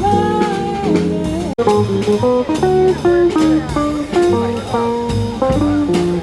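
Background music led by a plucked guitar playing a melody of short notes, with a sudden brief dropout about one and a half seconds in.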